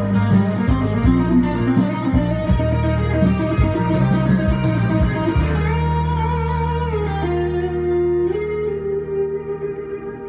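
Electric guitar solo played over a rock backing track. The drums and moving bass drop out about five seconds in, leaving a held low chord under which the guitar sustains long notes, one bent upward.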